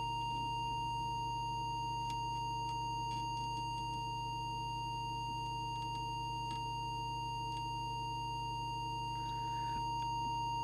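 Steady, single-pitch audio test tone over a low hum: the tone modulating a CB radio transmitter while its FM deviation is being set. A few faint ticks sound over it.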